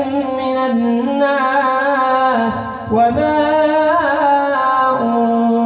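A man's voice reciting the Quran in a melodic chant, holding long notes that rise and fall slowly in pitch, with a brief pause for breath about halfway through.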